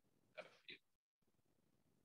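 Near silence: room tone, broken about half a second in by one brief, faint spoken syllable or two.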